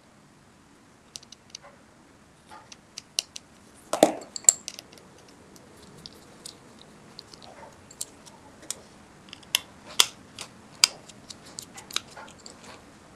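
Small, sharp, irregular clicks and taps of a precision Torx screwdriver working the tiny screws out of a phone's inner frame, and of the little screws being set down one by one. The loudest taps come about four, eight and ten seconds in.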